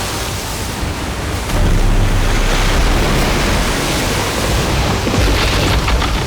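A torrent of floodwater rushing, with a deep rumble under it that swells about a second and a half in: the sound of a flood wave released from a lake.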